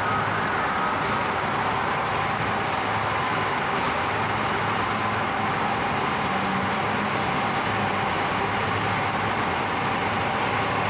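Diesel work train crossing a steel bridge: a steady rumble with a low engine hum under it.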